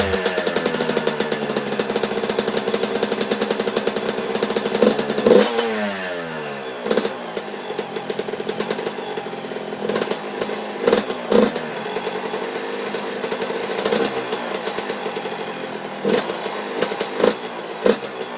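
85cc two-stroke dirt bike engine and exhaust dropping from a rev to a crackly idle, then given a string of short, sharp throttle blips, each falling quickly back to idle.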